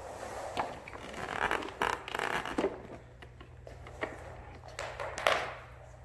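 Commercial upright vacuum cleaner with a steady low hum, its head scraping and clicking as it is pushed across the floor and onto carpet, with a sharper knock a little after five seconds.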